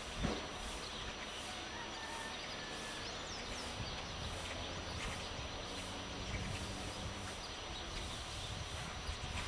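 Early-morning village ambience: a steady outdoor background with faint, scattered bird chirps, and a single short thump just after the start.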